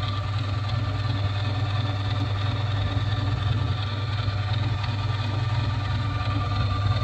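Electric grinder motor running steadily, with a low hum and a thin high tone held throughout.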